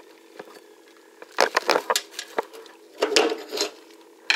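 Sink drain parts being handled: two quick clusters of sharp clinks and knocks, about a second and a half in and again about three seconds in, over a steady low hum.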